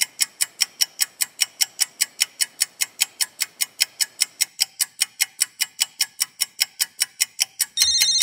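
Clock ticking quickly and evenly, about five ticks a second. Near the end a telephone starts to ring over it.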